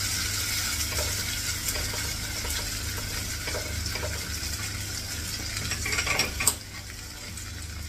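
Diced capsicum sizzling in hot sesame oil in a frying pan, left on the heat after the gas is turned off, with scattered small knocks and scrapes. About six seconds in, raw mango cubes are scraped off a wooden board into the pan in a louder burst of scraping and sizzling, and then the sizzle goes quieter.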